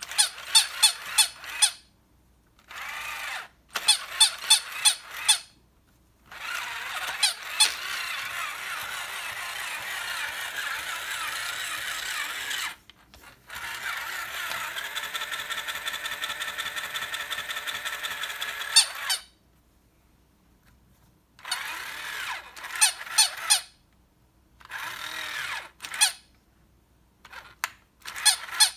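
Battery-operated Pitter Patter Pets plush toy dog: bursts of quick electronic yapping barks from its small speaker, set off by patting its head. These alternate with two long stretches of its small geared walking motor whirring with a fast, even ticking as the legs step.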